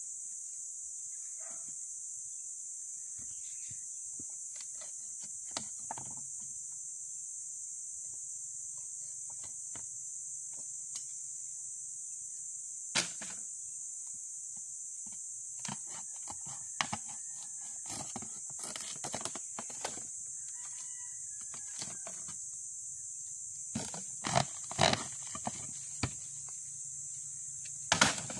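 Wooden formwork boards being pried off a freshly cast concrete post with a crowbar: scattered sharp knocks and wooden clatters, with a cluster about two-thirds of the way in and another near the end. A steady high-pitched drone runs underneath.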